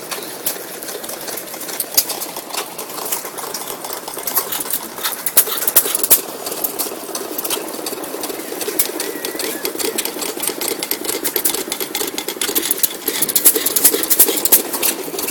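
Waterloo Boy-built 2 HP Majestic hit-and-miss gasoline engine running while it drives a small concrete mixer: a rapid, irregular clatter of mechanical ticks and clicks, with an occasional louder knock.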